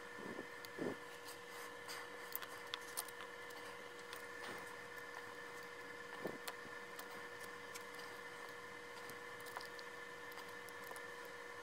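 Faint clicks and rubbing from fingers handling and pressing together the parts of a small toy car, over a steady hum. A few sharper clicks come in the first second and again around the middle.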